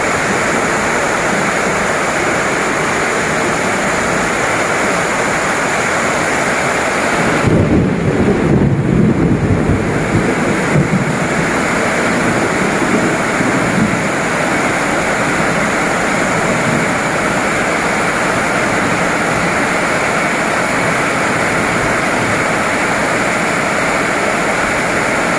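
Heavy rain pours on the station and track as a 205-series KRL commuter electric train rolls past, a loud, steady rushing noise. A deep rumble swells for about three seconds, a third of the way in.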